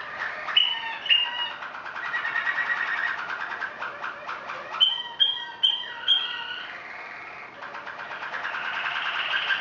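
Malinois waterslager song canaries singing: rapid rolling trills mixed with runs of clear repeated notes. The song grows softer for a moment just past the middle, then builds again.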